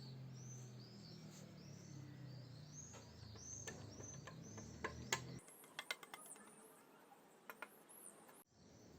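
Small birds chirping repeatedly, with a faint low hum that cuts off about five seconds in and a few sharp clicks.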